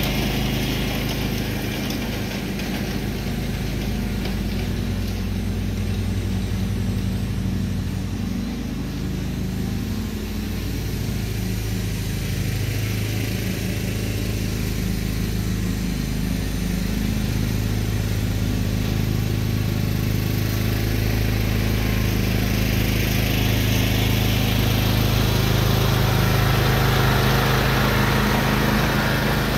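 John Deere riding lawn tractor's engine running at a steady speed while it tows a plug aerator across the lawn. It is a little quieter in the middle and grows louder near the end as the tractor passes close.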